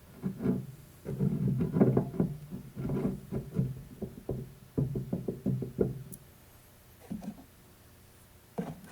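Irregular metal knocks and clinks as a pulley is worked onto a mower-deck spindle shaft over its woodruff key. They come thick for about six seconds, then stop except for a couple near the end.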